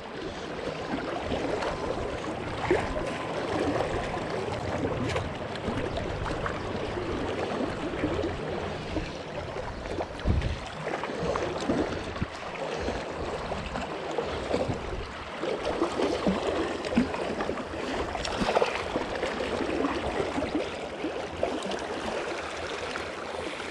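River water rushing close by, with scattered splashes while a hooked brown trout is played and netted.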